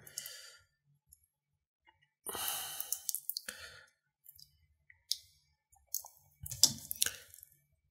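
Light clicks and taps of small plastic vape parts (a Smok Nord's battery, contact block and casing) being handled and fitted together, with a soft breath out about two seconds in and another soft rush near the end.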